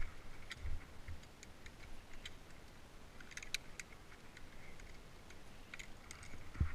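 Light metallic clicks and ticks of via ferrata carabiners riding on the steel safety cable, scattered and irregular, a cluster of them a little past the middle. A few dull thumps, the loudest at the start and near the end.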